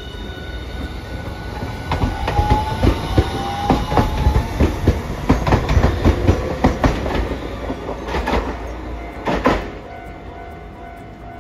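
Hiroshima Electric Railway 5200-series Green Mover APEX low-floor tram pulling away and passing close by: a rapid run of wheel clacks over the rail joints, with a rising whine as it gathers speed. The clacking dies away near the end.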